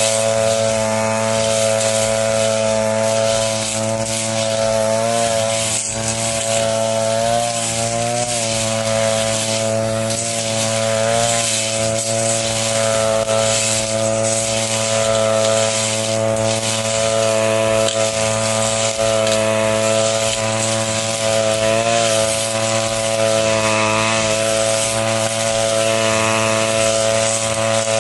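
Backpack brush cutter's small petrol engine running hard while cutting dry grass, with brief dips in engine speed every few seconds.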